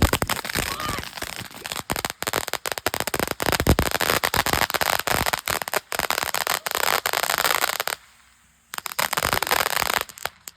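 Consumer firework crackling: a fast, dense string of sharp pops over a hissing spray. It breaks off briefly near the end, crackles again for a moment, then stops.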